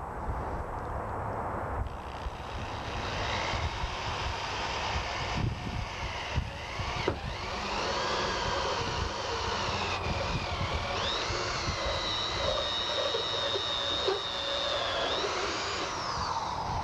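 Electric drill turning a 3/4-inch hole saw through the sheet-metal roof of a 2009 Ford F-150, a continuous whining screech whose pitch wavers, then holds a steady high tone for a few seconds before it stops near the end.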